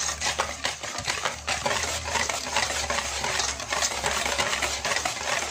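Wire whisk beating margarine, sugar and eggs in a stainless steel bowl: rapid, continuous clinking and scraping of the wires against the metal. The mixture is being beaten until the sugar dissolves.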